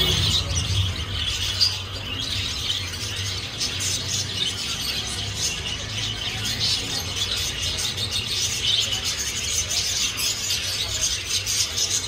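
A flock of caged zebra finches calling, a dense chatter of many short overlapping chirps throughout, over a low steady hum.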